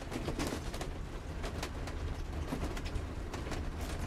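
Cab noise of a motorhome driving slowly along a narrow lane: a steady low engine and road rumble, with irregular clicks and rattles scattered throughout.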